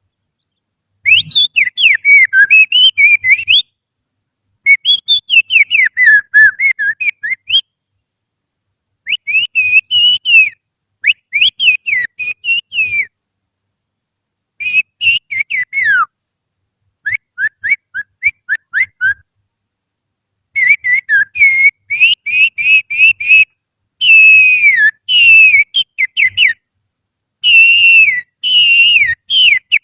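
A person whistling through the fingers in imitation of an oriental magpie-robin's song: about ten quick, warbling, chirping phrases, each one to three seconds long, separated by short silences. It is a lure call meant to set caged magpie-robins singing.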